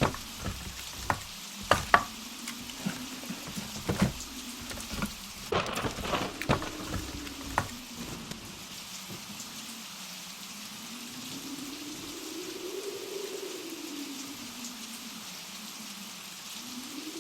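Blizzard wind howling, its whistle slowly rising and falling in pitch over a steady hiss of blowing snow. Sharp, irregular cracks and knocks come in the first half and stop about eight seconds in.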